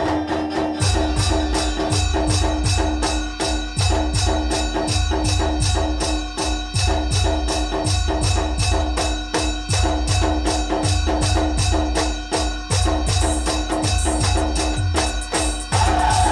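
Band music for dancing: a fast, steady drum beat of about four to five strokes a second with jingling percussion, over held melody notes. Near the end a new, higher melody line comes in.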